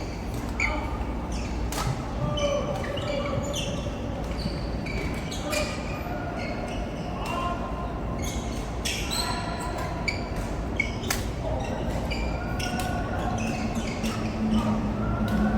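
Badminton rally in a large hall: rackets striking a goose-feather Aeroplane shuttlecock with sharp hits about every second or two, with short high squeaks in between.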